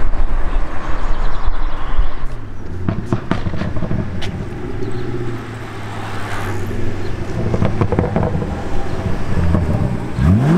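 Cars pulling away one after another: engine noise, then a steady engine note with a few sharp pops about three to four seconds in. Near the end an engine revs up in a fast rising sweep as a Ferrari pulls off.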